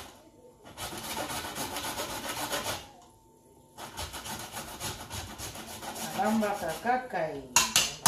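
A knife blade scraping raw goat meat in a stainless steel pot, in quick repeated strokes. There are two runs of scraping with a short pause between them, and a few sharp, louder strokes near the end.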